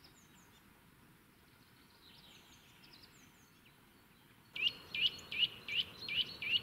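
Faint, high, short chirps from small woodland birds. About four and a half seconds in, a Eurasian nuthatch starts singing loudly: a fast series of identical rising whistled notes, about two and a half a second, the male's territorial song.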